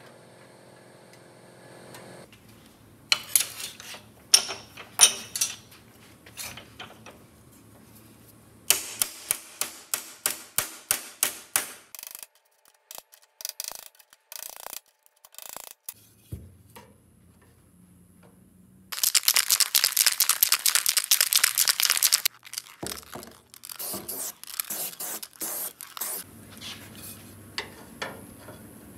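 A hammer striking a steel patch strip clamped in a bench vise to shape its bend: sharp metal-on-metal blows, in places in quick runs of about three a second. About two-thirds of the way through, a few seconds of loud steady rasping from abrasive work on the metal.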